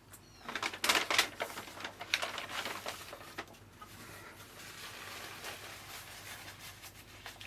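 Eating and handling noises from a hamburger: a couple of louder rustles about a second in, then softer crackling and mouth sounds.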